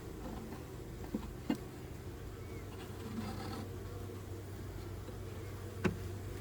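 Honeybees buzzing in a steady drone around an opened hive, with three short light knocks, about a second in, a second and a half in and near the end.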